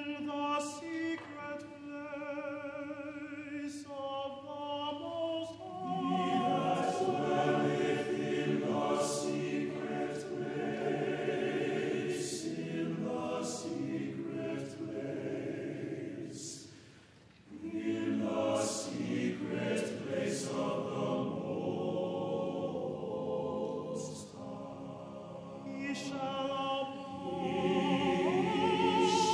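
Mixed choir singing a sacred choral anthem. A single solo voice with wide vibrato opens, and the full choir comes in about six seconds in with sustained chords. It breaks off briefly near the middle, resumes, and a solo voice rises above it near the end.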